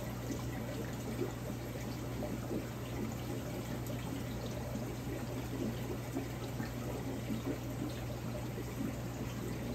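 Aquarium filtration water running in an overflow tank: a steady pouring, trickling splash with a steady low hum underneath.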